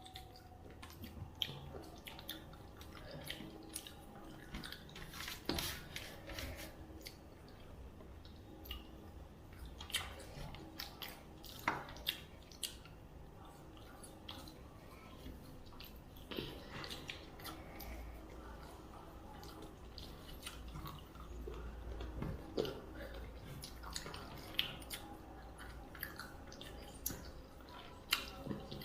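Eating sounds: chewing with many small irregular mouth clicks and food-handling clicks as a meal of rice and fish curry is eaten.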